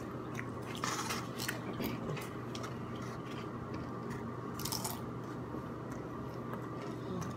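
Close-miked biting and chewing of a torta, the crusty toasted roll crackling in scattered crunches, with denser bursts about a second in and again near the middle. A steady low hum runs underneath.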